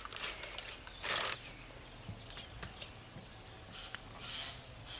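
Crumpled baking paper rustling as it is lifted off a roast turkey, with the loudest rustle about a second in, followed by a few light clicks and taps.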